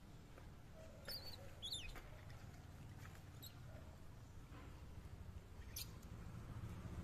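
Faint, short high-pitched animal squeaks: two quick falling chirps about a second apart, and one more near the end.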